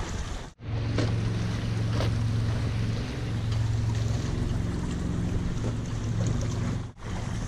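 Wind buffeting the microphone and water rushing past the hull of a Hobie catamaran under sail, with a steady low hum underneath. The sound drops out for an instant about half a second in and again near the end.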